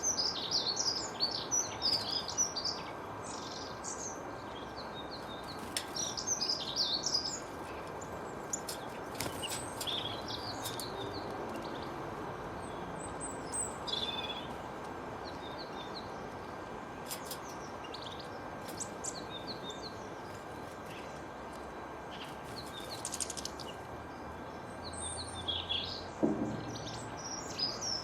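Small birds chirping and singing in scattered bursts of short high notes, over a steady background hiss.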